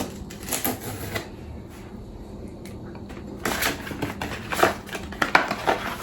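Cardboard retail box being opened by hand: scattered clicks and rustles, then from about halfway a busy run of sharp clicks and scrapes as the packaging is pulled apart.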